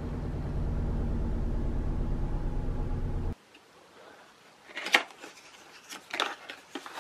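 A steady low hum that cuts off abruptly about three seconds in. Then a hand handles and opens a paperboard cosmetics box, giving a few sharp clicks and light rustles.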